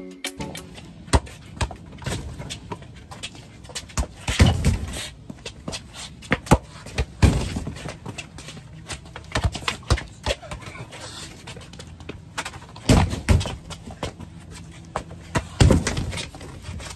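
Gaga ball game on concrete: a rubber ball slapped, bounced and knocked against cardboard pit walls, with sneakers stepping and scuffing, making irregular knocks and a few louder thuds.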